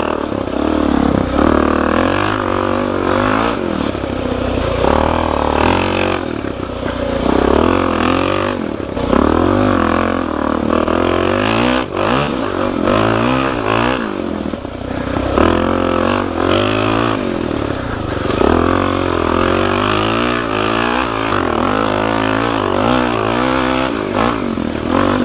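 Suzuki DR-Z400 single-cylinder four-stroke dirt bike engine under way on a trail, its pitch rising and falling over and over as the throttle is opened and rolled off.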